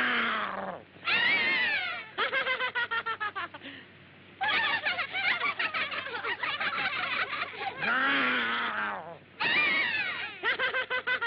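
Wordless cartoon character voices: high gliding cries alternating with fast, stuttering laughter-like chatter, in several bursts with short breaks between.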